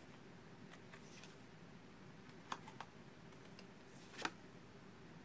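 Faint clicks and taps of tarot cards being drawn from a deck and set into a slotted card stand: two small clicks a little after halfway through, then a short sliding click about four seconds in.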